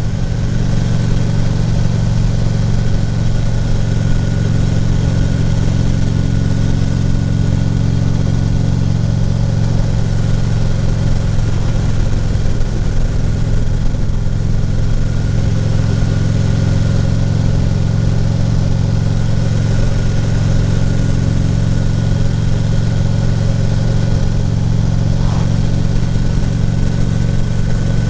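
Harley-Davidson touring motorcycle's V-twin engine running at a steady pace while riding, heard from the rider's helmet with a steady rush of wind and road noise.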